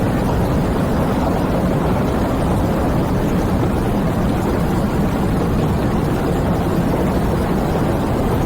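Heavy rain and wind: a steady, dense rush of noise that is even throughout, heaviest in the low end.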